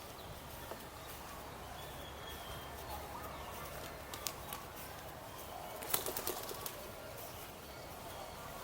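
Birds calling over a steady outdoor background, with a few sharp clicks about four seconds in and a quick run of them about six seconds in.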